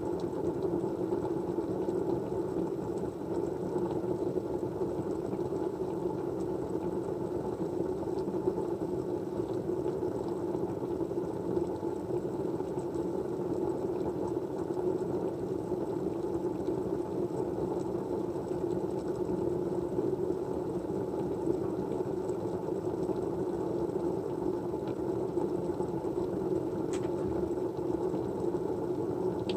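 Steady white noise: an even, low rushing hum that does not change, with a faint tick near the end.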